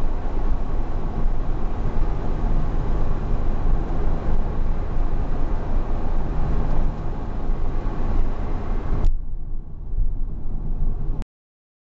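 Porsche Cayman S flat-six engine running steadily at cruise, with tyre and road noise, heard from inside the cabin. About nine seconds in the sound turns duller, and a couple of seconds later it cuts off abruptly to silence.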